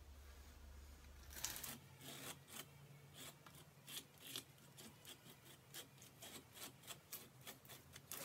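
Faint scratching of a capping scraper raking the wax cappings off a frame of honeycomb, in short repeated strokes about two a second that begin about a second and a half in.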